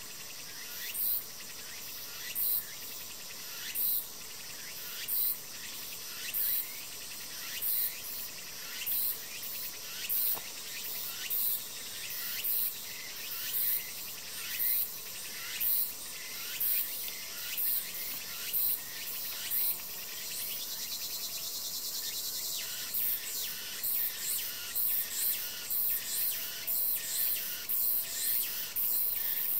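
Insects calling: a short, high buzzy call repeats about once a second, slowly quickening, over a steady high insect hum. About two-thirds of the way through there is a steadier buzz, and after it the calls come about twice a second.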